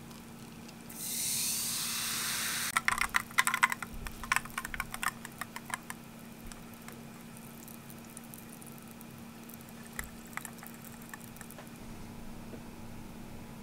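Sugar-free carbonated water poured from a plastic bottle into a glass of ice cubes: a steady pour lasting under two seconds, then a burst of crackling and clicking from the ice and the fizzing bubbles, thinning out to faint scattered fizzing.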